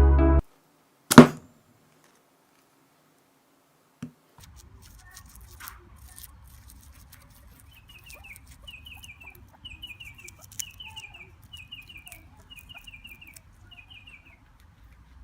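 One sharp, loud hit about a second in, then a bird chirping over faint outdoor background: a short, high, falling call repeated about once a second.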